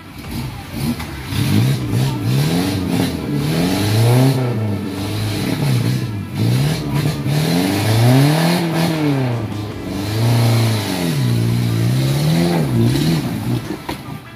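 Suzuki Jimny Katana engine revved up and down over and over, about eight swells of rising and falling pitch, as the 4x4 crawls through a rocky river bed with water up to its wheel hubs.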